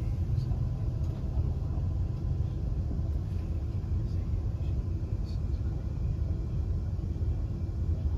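Class 350 Desiro electric multiple unit in motion, heard from inside the carriage: a steady low rumble of wheels on track and running gear.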